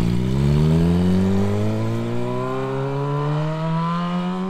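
Sport motorcycle engine accelerating away down the street, its revs climbing steadily in one long rising note.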